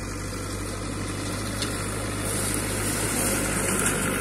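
Türk Fiat 70-56 tractor's diesel engine running steadily while it mows grass with a side-mounted rotary mower. It gets somewhat louder toward the end, with a high hiss from the mower growing in as the tractor comes closest.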